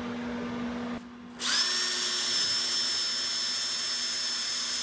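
Power drill boring the pilot hole for a sink cut-out in a countertop: after a low hum, it spins up about a second and a half in and holds a steady high-pitched whine.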